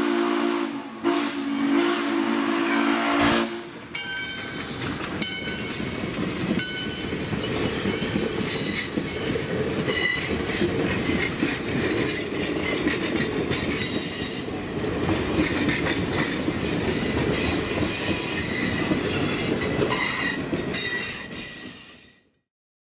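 Steam locomotive's three-chime whistle sounding a long blast that cuts off about three seconds in. A train of passenger coaches then rolls past, wheels clicking over the rail joints, with a few brief high wheel squeals, until the sound fades out near the end.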